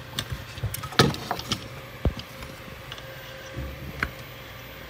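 Scattered clicks and light knocks of a Galax GT 730 graphics card and its plastic fan shroud being handled and set down on a workbench, the loudest click about a second in.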